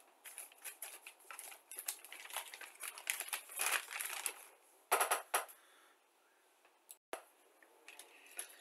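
Plastic model-kit sprues rattling and a plastic sprue bag crinkling as the parts are handled, with a louder clatter about five seconds in and a single click near seven seconds.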